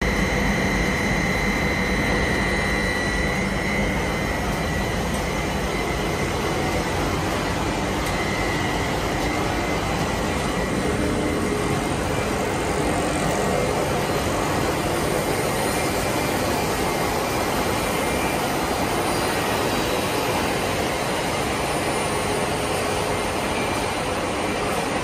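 Steady machine noise from a running PVC coil mat extrusion production line, with a thin high whine over it for the first few seconds.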